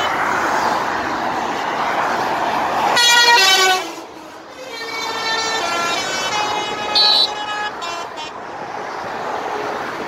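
Truck air horn sounding over motorway traffic noise: a loud multi-tone blast about three seconds in that drops in pitch, then a longer, weaker and lower-pitched sounding that fades out a few seconds later.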